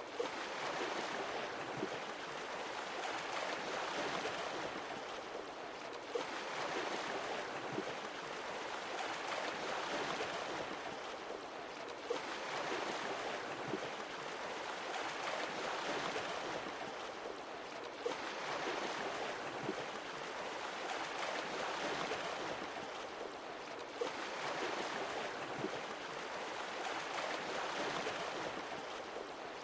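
Sea waves washing in and drawing back, one surge about every six seconds, each starting with a brief sharp crest.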